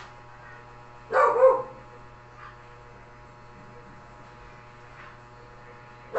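A dog barks briefly once, about a second in, over a steady low electrical hum.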